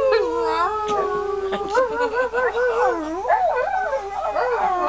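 Dog howling: one long note that slides slowly down in pitch, then breaks into wavering, warbling notes that rise and fall.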